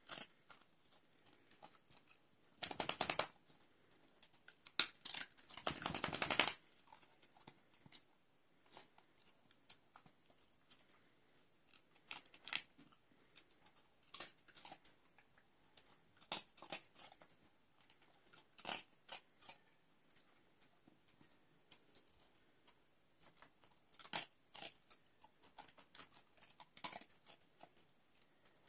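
A Jack Russell terrier crunching dry kibble, with scattered sharp crunches. Two longer noisy bursts stand out, around three seconds in and again about five to six and a half seconds in.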